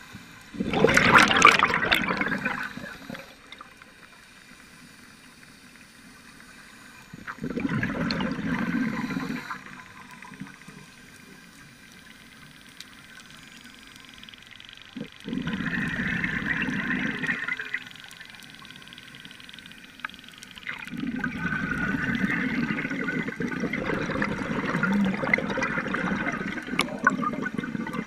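Scuba regulator exhaust bubbles from a diver's exhalations: bursts of bubbling every several seconds, with quiet pauses for each breath in between. There are four bursts, and the last one is longer.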